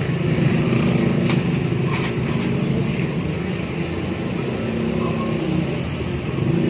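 Steady street noise: road traffic running, with indistinct voices in the background.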